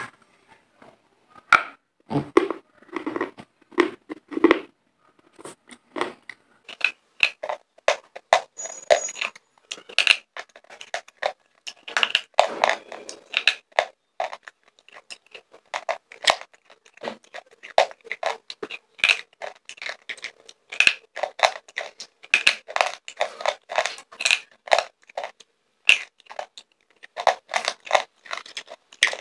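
Slate pencils bitten and chewed right at a clip-on microphone: a quick, irregular run of sharp crunches and crackles with short pauses.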